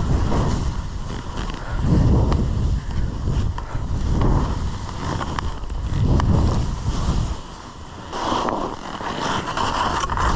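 Wind buffeting the microphone of a skier on the move, with skis hissing and scraping over snow. The rumble swells and eases about every two seconds, and a brighter scraping hiss comes in near the end.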